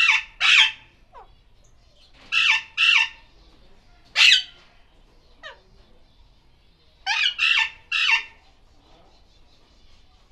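Alexandrine parakeets giving loud, harsh squawks in short groups of two or three, each call falling in pitch, repeated about eight times over the stretch.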